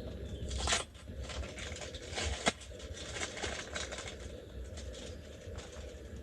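Rustling and light clicking of things being handled close by, with a louder rustle just under a second in and one sharp click about two and a half seconds in.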